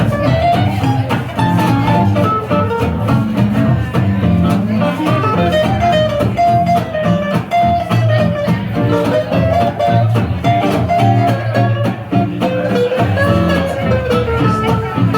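Live swing jazz band playing: guitars strum a steady accompaniment under a wavering melody line.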